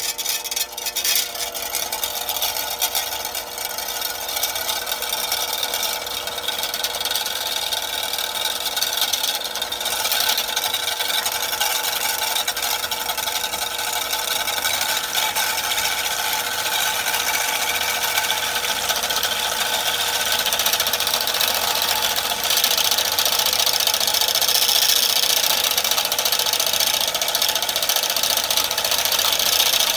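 Electric stand mixer running steadily, its wire whisk beating lime juice in a plastic measuring cup as oil is streamed in to emulsify the dressing. The sound gets somewhat louder in the second half.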